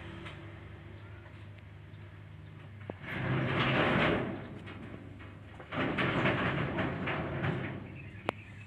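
Two bursts of rustling and scraping, about a second and then two seconds long, as newborn kittens squirm against towels in a cardboard box, followed by a single sharp click near the end. No meowing.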